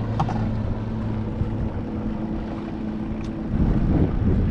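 A boat motor hums steadily at a low pitch. From about three and a half seconds in, wind buffets the microphone.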